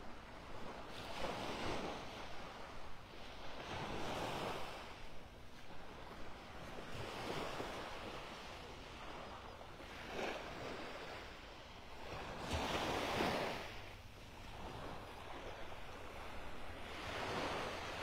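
Small, gentle waves lapping and washing up on a shell-covered beach, each one a soft swell of surf every few seconds.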